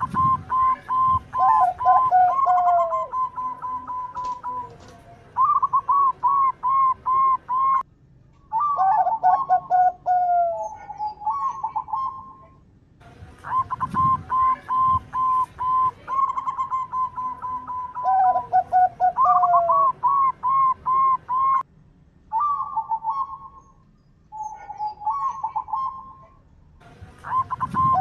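Zebra dove (perkutut) song: bouts of quick, evenly repeated cooing notes, some phrases stepping down lower near their end, with short pauses between bouts.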